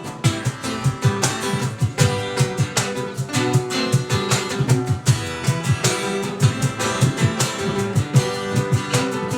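Acoustic guitar strummed in a quick, steady rhythm, played as an instrumental passage with no singing.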